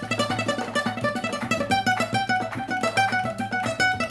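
Flamenco guitar playing a fast lick, a rapid even stream of single plucked notes.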